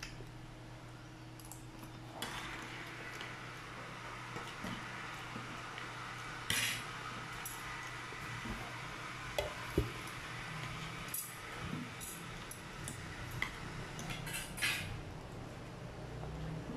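A metal spoon and fork clinking and scraping against a plate while eating, with several scattered sharp clinks.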